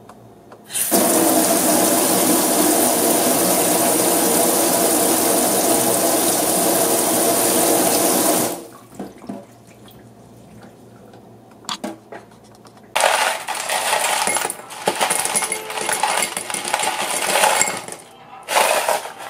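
Tap water running hard into a stainless-steel sink for about eight seconds, then shutting off. Later, irregular clattering, ending with ice cubes dropping and clinking into a glass tumbler.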